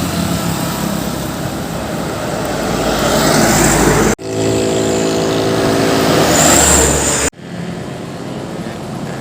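Heavy trucks' diesel engines running as they drive past, in three stretches joined by sudden cuts about four and seven seconds in. The first grows louder up to its cut, the second holds a steady engine drone, and the last is quieter.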